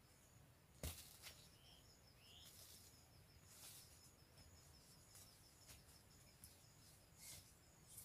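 Near silence: faint scrapes and rustles of hands digging in dry soil around a wild tuber, the sharpest about a second in. A faint high ticking and a couple of short bird chirps sound in the background.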